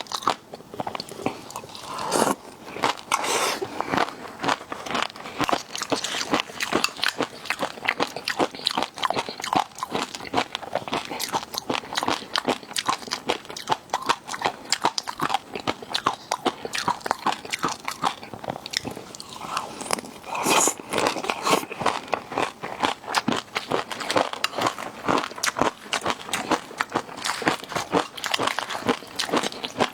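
Close-miked, continuous chewing and biting of seafood: wet smacks and crunches, with louder crunches a couple of seconds in and again about two-thirds of the way through.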